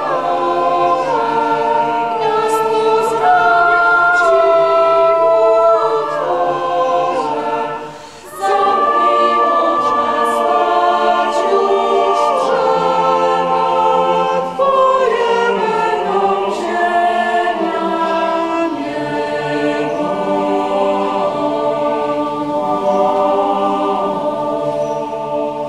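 Church choir singing a Polish Christmas carol in several parts, with organ accompaniment, holding long chords phrase by phrase; a short pause between phrases about eight seconds in.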